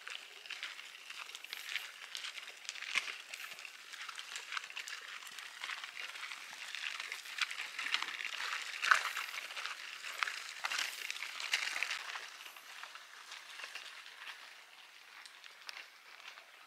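Footsteps crunching on a dirt and gravel trail: an irregular run of small crackles, busiest in the middle, with one sharper click.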